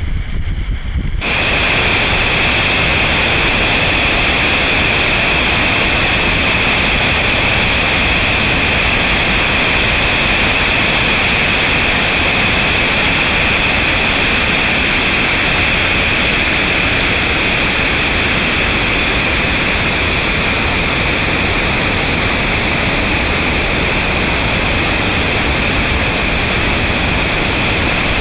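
Waterfall in flood, a steady loud rush of white water that sets in suddenly about a second in and holds unchanged; the falls are running high, wall to wall with water.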